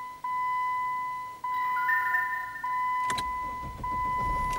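Jeep Grand Cherokee dashboard warning chime, one bong-like note struck about every 1.2 seconds, each fading before the next. About three seconds in there is a sharp click, and the low rumble of the 3.0 CRD V6 diesel starting up comes in under the chime.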